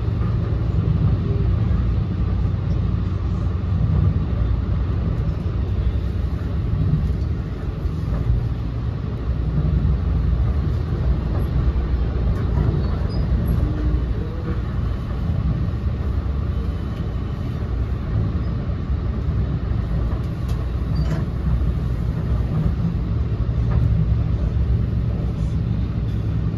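Steady low rumble inside an NJ Transit Multilevel commuter rail coach running at speed, with a few faint ticks.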